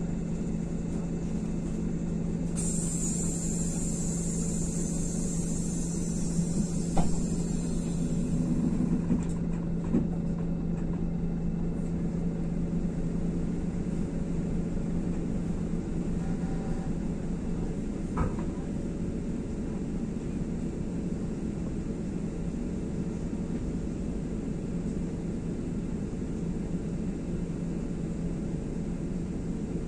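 Inside an IVECO Crossway LE bus: the steady drone of its Cursor 9 diesel engine and running noise. A high hiss starts about two seconds in and lasts about six seconds, and there are two brief knocks, one a few seconds later and one near the middle.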